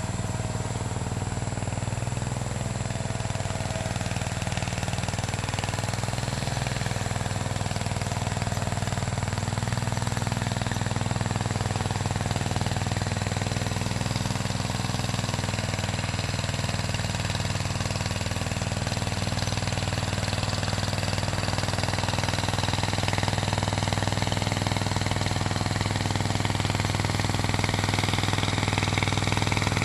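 Allis-Chalmers 716 garden tractor's engine running steadily at a low, even speed.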